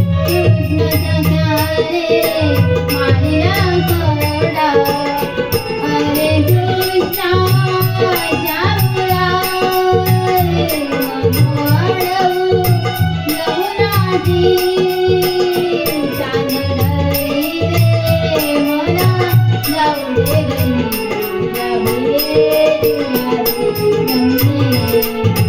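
Marathi gavlan devotional folk music: a gliding melody over a steady drum beat with fast, even ticking from small cymbals or rattles, and no words made out.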